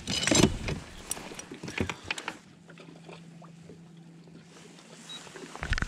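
Gear being rummaged out of a bass boat's storage compartment: a rustling burst, then scattered clicks and knocks. This gives way to a quieter stretch with a faint steady hum, and more knocks come near the end.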